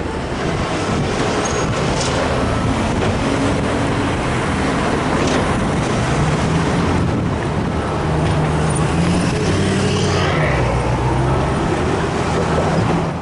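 Road traffic passing close by: cars and pickup trucks driving over a railroad crossing, with steady engine and tyre noise.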